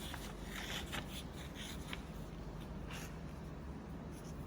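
A sheet of A4 paper being torn along a creased fold, a faint ripping in short stretches, mostly in the first two seconds and once more about three seconds in.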